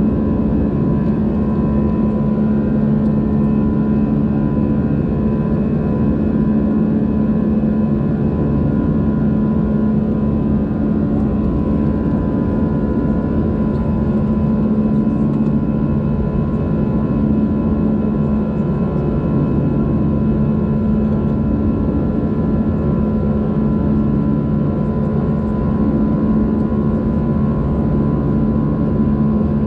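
Steady cabin noise of an Airbus A320-200 heard from inside at a window seat: a constant engine drone and airflow rumble with several steady hums held at one pitch, running at unchanging power.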